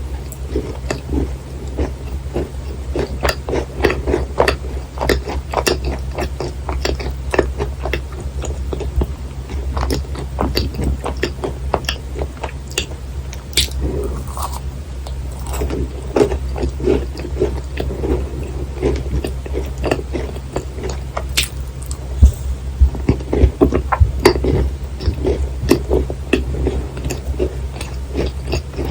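Close-miked chewing and biting of thick, dense-filled macarons: irregular sticky, wet mouth sounds with many small clicks, over a steady low hum.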